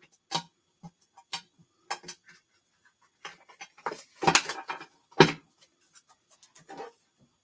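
A tarot card deck being handled and shuffled: an irregular scatter of soft clicks, taps and card slaps, with the loudest knocks about four and five seconds in.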